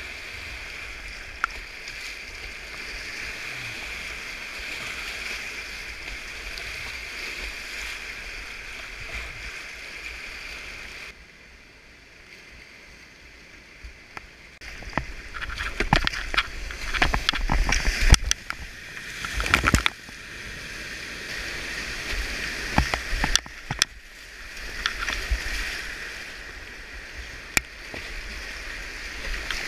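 Rushing whitewater rapids, a steady hiss of fast current heard from a kayak. It goes quieter about a third of the way in, then a run of loud splashes and sloshing follows as the kayak is paddled through rough water, before the steady rush returns.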